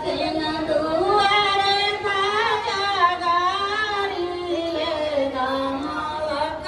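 Women singing a wedding song together, a melody of long held notes that slide from one pitch to the next.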